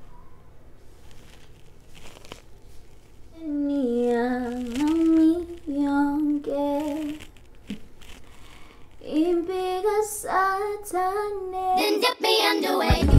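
A woman's voice singing a tune without accompaniment, in held, sliding notes, starting a few seconds in after faint handling ticks. Loud music with a heavy bass cuts in right at the end.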